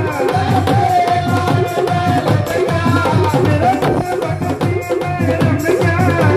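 Live Indian devotional band music: a hand-played dholak drum beats a steady rhythm under a held, wavering melody line.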